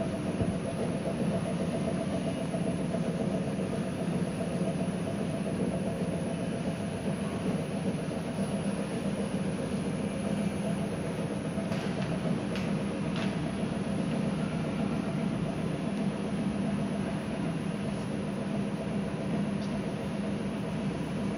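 Drive-shaft balancing machine spinning a drive shaft at about 300 rpm during a measurement run: a steady mechanical hum, with a few faint clicks about twelve seconds in.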